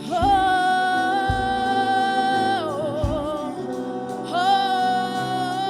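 Live gospel worship music: a singer holds long notes over the band, with low bass notes underneath. The first note wavers and drops about three seconds in, and a new one slides up a second later.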